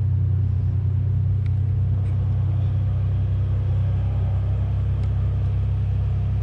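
Steady low rumble and hum that does not change.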